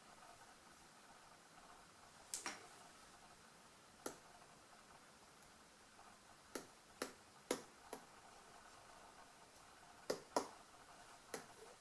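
About ten short, sharp clicks and taps, irregularly spaced and some in quick pairs, over a faint steady hum.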